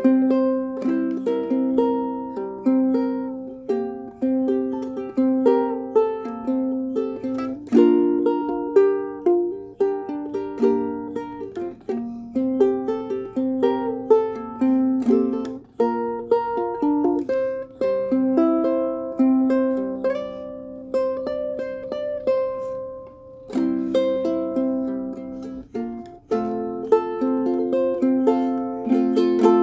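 Pineapple-shaped ukulele with a spruce top and maple body, strung low-G with fluorocarbon strings, played as a plucked melody over chords.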